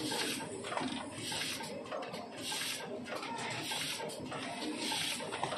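Automatic dumpling tray-arranging machine running: short bursts of compressed-air hiss about once a second from the pneumatic grippers on its pick-and-place robot, over a steady machine noise.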